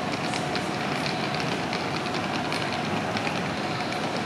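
Busy train-station platform ambience: a crowd walking past, with many quick footsteps and suitcase-wheel clicks over a steady din, and a faint steady hum throughout.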